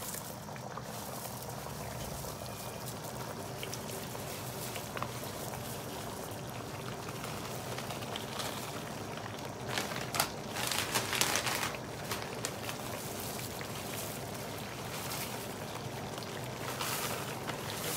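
Coconut milk simmering in a pot, a steady bubbling hiss, while dried taro leaves are tipped in from a plastic bag: the bag crinkles and the leaves rustle in bursts about ten seconds in and again near the end.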